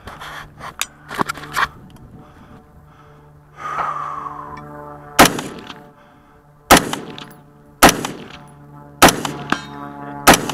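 Custom AR-15 rifle with an 18-inch barrel and SureFire ProComp muzzle brake firing .223 rounds: five single shots about one to one and a half seconds apart, starting about five seconds in, each one very loud and sharp. A few soft clicks of handling come before the first shot.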